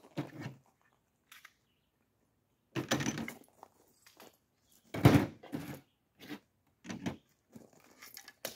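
Pistol being handled: a series of short metallic clacks and thunks, two stronger ones about three and five seconds in, as a pistol is picked up off a table and readied, magazine seated and slide worked, before firing.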